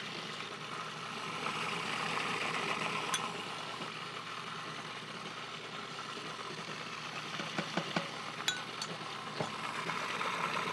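Food processor motor running steadily, its blade churning a thick chickpea and tahini purée. A few light clinks of a metal spoon against a glass measuring cup come about three seconds in and again in the second half.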